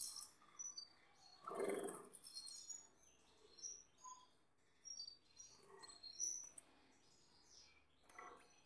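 Gloster canaries in a cage giving short, high chirps scattered through, with a brief burst of wing flapping about two seconds in.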